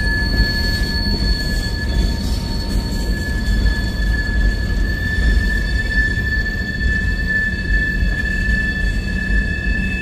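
Freight train boxcars rolling past with a steady low rumble, and a continuous high-pitched squeal from the steel wheels on the rails.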